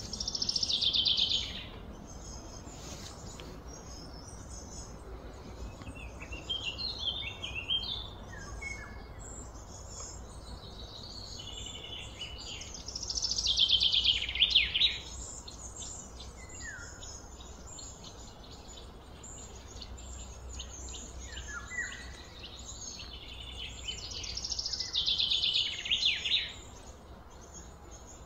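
Songbirds singing: one bird repeats a loud, fast trilled phrase that falls slightly in pitch, three times about twelve seconds apart, with scattered shorter chirps from other birds between. A steady low hum runs underneath.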